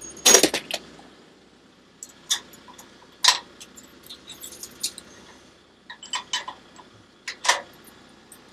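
Scattered metal clinks and clicks of a steel hitch pin and safety clip being worked by hand into the tractor's top link at the winch's top mount. The loudest clink comes just after the start, with lighter ones spread through the rest.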